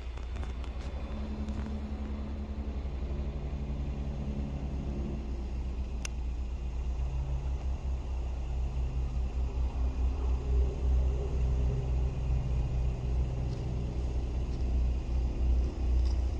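Car on the road: a steady low rumble of engine and road noise with a faint engine hum.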